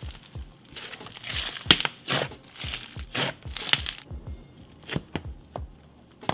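Slime being squished and pulled by hand, giving a quick run of crackles and small pops, busiest from about one to four seconds in and sparser after.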